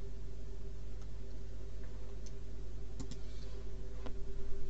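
A few sharp computer mouse clicks, about a second apart, over a steady low electrical hum.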